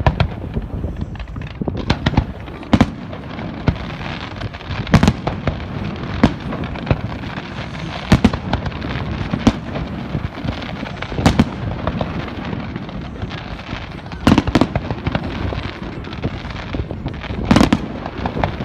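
Fireworks display: loud shell bursts going off every second or two, with continuous crackling between them.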